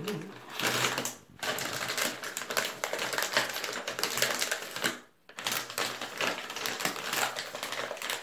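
A snack bag crinkling as it is handled: a dense run of rapid crackles that breaks off briefly about a second in and again around five seconds in.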